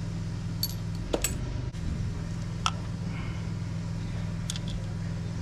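Small steel hardware (bolts, spacers and nuts) clinking a few times as it is handled and fitted to an engine-bay bracket, over a steady low hum.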